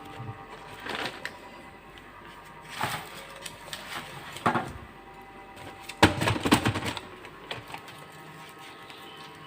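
Short bursts of clattering and knocking as things are handled and set down, the loudest cluster a little past the middle, over soft background music.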